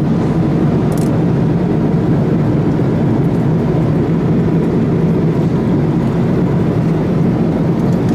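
Steady cabin noise of an Airbus A330 airliner at cruise: a constant low rumble of engines and airflow heard from inside the cabin. A short click sounds about a second in.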